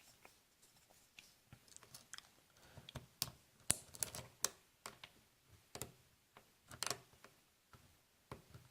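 Faint, irregular metal clicks and ticks of a lock pick and tension wrench working the spool and serrated pins inside a Master Lockout padlock's keyway, as pins are lifted and set one at a time.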